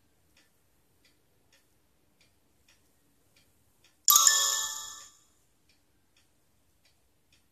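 Faint, steady ticking, about three ticks every two seconds. About four seconds in, a single loud chime rings out and fades within about a second.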